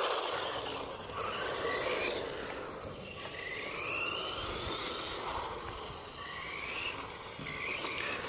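Electric motor of a GPTOYS S911 RC monster truck driving, whining up in pitch several times as it accelerates, over a steady hiss of tyres and outdoor noise.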